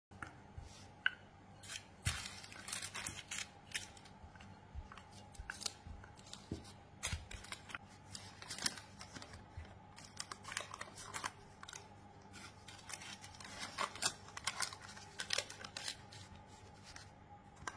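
Baking paper crinkling and rustling in short, irregular crackles as hands press a sheet of shortcrust pastry into a tart tin, over a faint steady hum.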